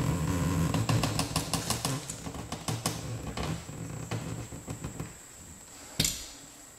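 A blade cutting and scraping into a hardwood floorboard along a delaminated, bubbled section, a run of quick clicking strokes over a low rasp that dies away about five seconds in, then one sharp click near the end.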